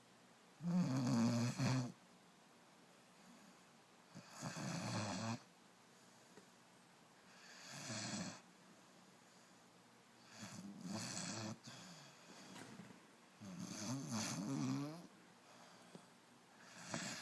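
Puppy snoring: about six snores, roughly three seconds apart, each lasting a second or so, the first the loudest.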